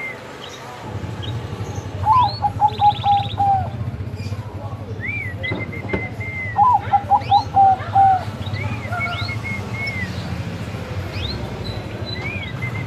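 Bangkok-type zebra dove (perkutut) cooing: two quick runs of staccato coos, about two seconds in and again around seven seconds in. Higher chirps from other small birds and a steady low hum run underneath.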